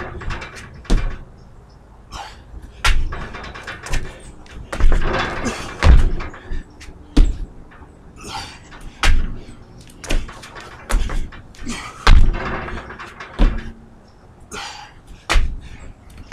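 Repeated thuds of feet and hands landing on a wooden deck during frog-jump burpees, about one every second or so.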